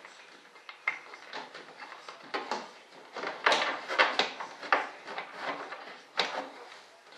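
Irregular clicks, taps and scraping of hands working on fittings inside a model jet's fuselage. A cluster of louder knocks comes about halfway through, and one sharp knock near the end.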